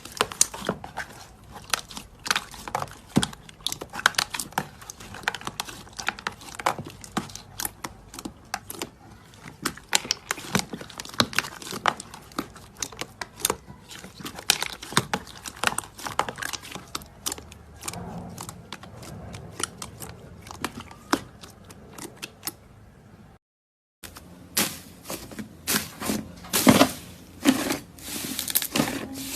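Slime being squeezed and worked by hand, giving a steady run of small sticky clicks and pops. The sound breaks off for a moment near the end and comes back louder.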